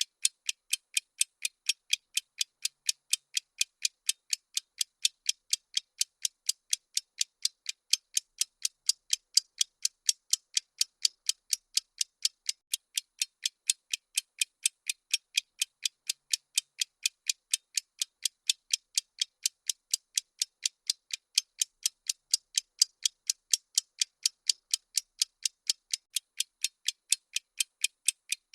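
Ticking sound effect of a bomb countdown timer: sharp, high clicks, evenly spaced at several a second and steady throughout.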